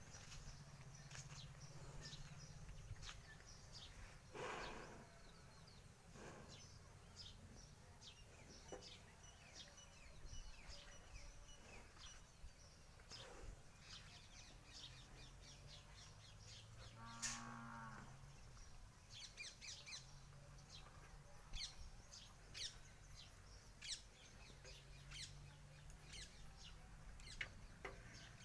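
Cattle lowing softly several times, long low moos, with one shorter, higher and louder call about two-thirds of the way through. Birds chirp throughout.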